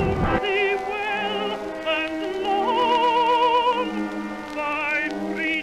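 Operatic singing with vibrato over orchestral accompaniment. A low rumble carried over from gunfire cuts off about half a second in.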